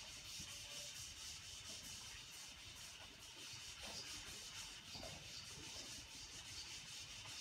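Felt chalkboard eraser wiping chalk off a chalkboard in quick back-and-forth strokes, a steady soft rubbing.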